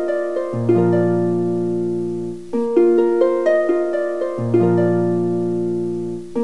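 Background music: a gentle harp-like melody of quick plucked notes over held bass notes, in short phrases that repeat every couple of seconds.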